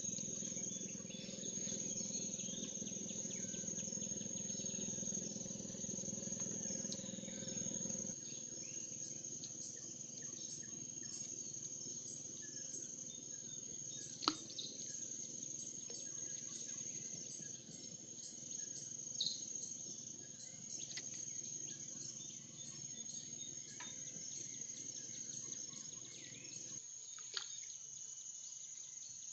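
A steady, high-pitched insect drone with scattered bird chirps. A low hum runs under it for the first eight seconds or so and then drops away. There are a few sharp clicks, the loudest about halfway through.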